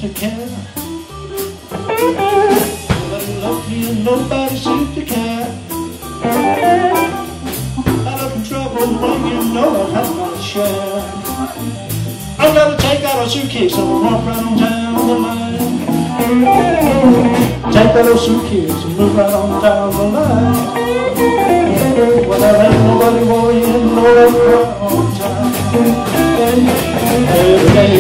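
Live blues band playing an instrumental stretch: electric guitar over bass guitar, drum kit and keyboard, growing louder toward the end.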